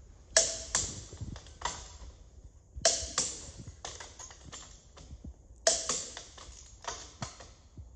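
Half-inch click-type torque wrench clicking as wheel bolts reach the set 110 Nm, three times about two and a half seconds apart. Each is one sharp metallic click with a short ring, followed by a few lighter clicks.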